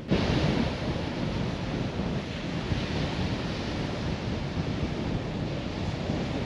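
Strong wind blowing over the microphone, a steady rushing noise.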